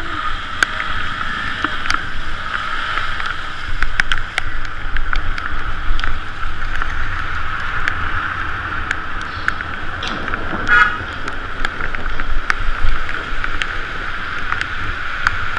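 Muffled ride noise of a bicycle moving through wet city traffic: a steady hiss of tyres on wet pavement, wind and passing cars, with frequent small clicks and knocks. A brief buzzy sound comes about ten seconds in.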